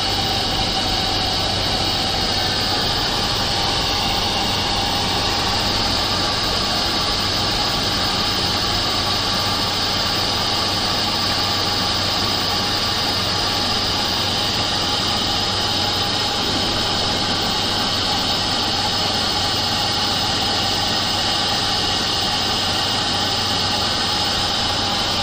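Laser cladding equipment running steadily: a constant hiss with a low electrical hum underneath, unchanging throughout.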